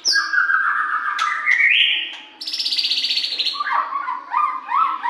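White-rumped shama singing a varied song of loud whistled phrases: slurred notes, a rapid trill about two and a half seconds in, and a run of short rising whistles near the end.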